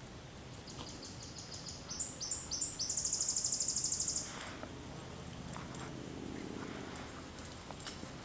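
A small songbird singing up in the trees: a run of thin, high notes stepping up in pitch, then a loud, very fast trill lasting about a second. Scattered single high chirps follow. A low steady hum sounds faintly in the second half.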